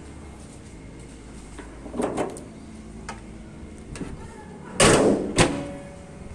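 A Honda Mobilio's body panel being shut: a clunk about two seconds in, then a loud thud just before the five-second mark and a sharper second one half a second later.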